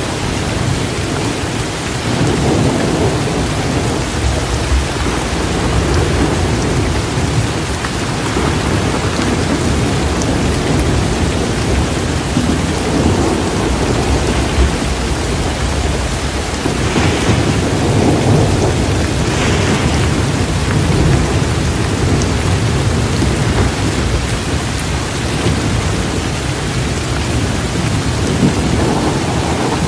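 Steady rain with low thunder rumbling in slow swells throughout.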